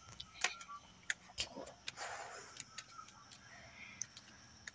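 Faint footsteps on concrete steps: scattered light taps and clicks at irregular intervals.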